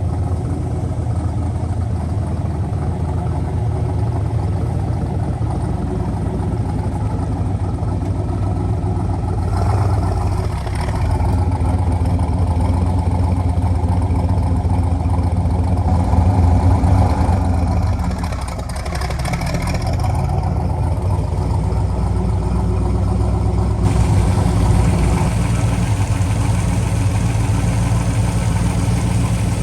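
1966 Corvette's V8 engine running fine, rising and falling in level with changes in engine speed, loudest a little past the middle.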